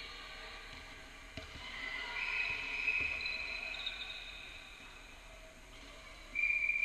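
Handball play on a sports-hall floor: high-pitched squeaks from court shoes and a ball bouncing a couple of times, then a sudden loud, steady whistle blast near the end.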